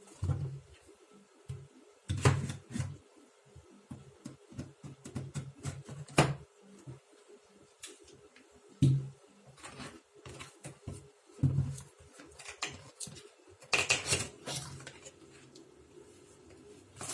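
A cardboard box being opened and a heat-resistant glass teapot unpacked by hand: scattered knocks, taps and light clinks, with a longer rustle of packaging near the end.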